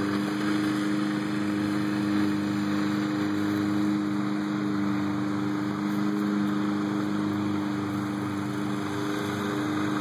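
A motor or engine running steadily at a constant pitch, an even hum with no change in speed.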